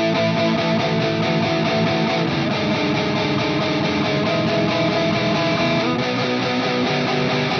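Multitrack rock demo playing back: an electric guitar riff over bass and drums, its held chord shifting about six seconds in.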